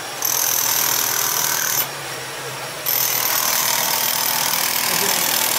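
Electric demolition hammer chiselling into concrete, with a steady high whine over the hammering. It runs for about a second and a half, stops for about a second, then starts again and keeps going.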